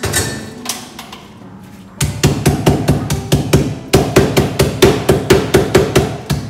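Lemongrass stalks being pounded with a metal mallet on a wooden cutting board to bruise them. A few separate blows come first, then from about two seconds in a fast, even run of about five strikes a second.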